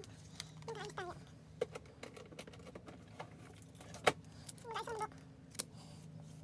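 Small clicks and light clattering of objects being handled, with one sharper click about four seconds in, over a faint steady hum. Two brief faint pitched sounds come about a second in and again about five seconds in.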